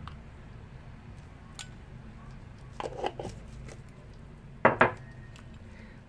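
A plastic measuring spoon knocking and scraping against a glass jar and a glass bowl while oil is scooped out: a few short clicks and knocks, with a cluster about halfway through and the loudest pair of knocks near the end.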